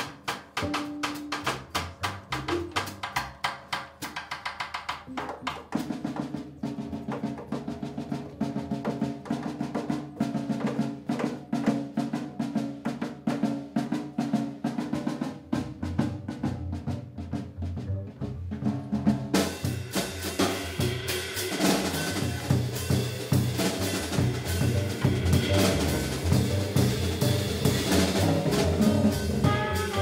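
Live jazz drum kit solo: dense strokes on snare, toms and rims with upright bass playing along underneath. From about two-thirds through, the drumming gets louder with ringing cymbals, and a trumpet comes back in at the very end.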